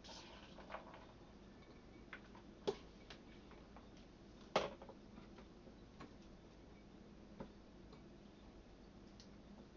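A few light, irregularly spaced clicks and knocks of kitchen utensils and containers being handled, the loudest about halfway through, over a faint steady room hum.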